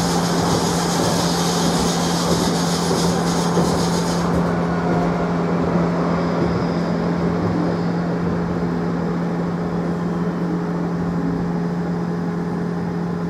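Running noise inside a Škoda 30T ForCity Plus tram in motion: a steady rumble under a constant low hum. A high hiss of wheels on rail drops away about four seconds in.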